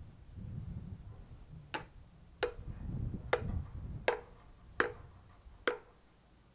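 Hatchet chopping kindling on a log: six sharp wooden knocks with a short ring, about one every 0.8 s, starting a little under two seconds in.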